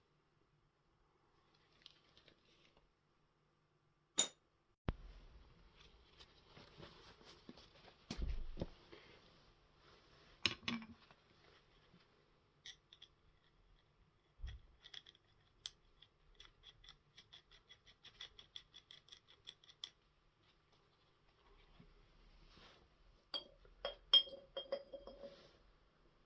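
Hand tools working on a wheel's valve: scattered sharp clicks and knocks with light scraping, a run of quick light ticks for a few seconds in the middle, and a short burst of metallic clinks near the end.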